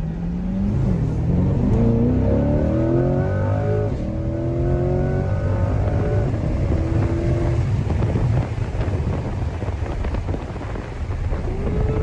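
Car engine revving hard under full acceleration, its pitch climbing in several steps, then giving way to a steady low road rumble about seven and a half seconds in.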